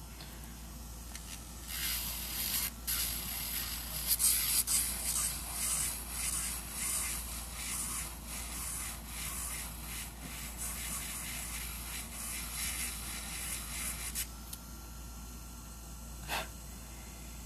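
A small hand tool rubbing and scraping against an acrylic nail in quick, uneven strokes for about twelve seconds, then stopping; a single short tap follows near the end.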